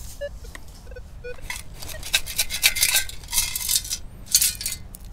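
Perforated metal sand scoop being shaken to sift out sand, with the coins inside clinking and rattling against the metal in two bouts of shaking over the second half. A few short beeps from the Minelab Manticore metal detector come before it.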